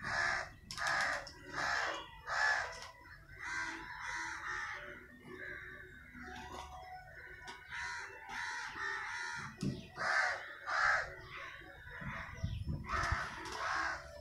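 Crows cawing over and over, short harsh calls in quick runs.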